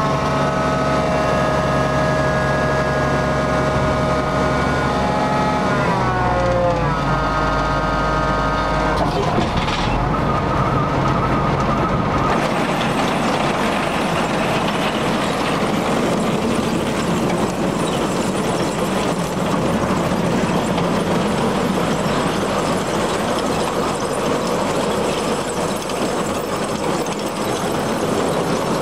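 An engine running with a steady hum, its pitch shifting and gliding about six to nine seconds in, then giving way to a steady rushing noise.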